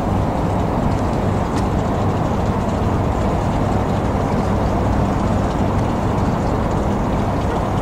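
A steady, unbroken engine-like drone with a low hum under a rushing hiss, holding level throughout.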